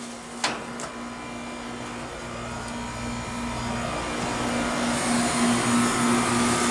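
Goodman heat pump running in heating mode: a steady compressor hum with fan noise that grows gradually louder. A single short click about half a second in.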